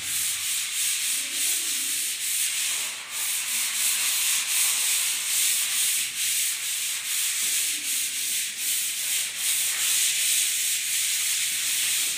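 Sandpaper rubbed by hand over dried wall putty, a scratchy hiss that swells and dips with each stroke: the putty coat is being sanded smooth and level before painting.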